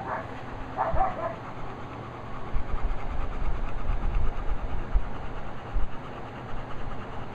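Dog's tail thumping on the floor: a run of irregular dull low thumps, over a steady low hum.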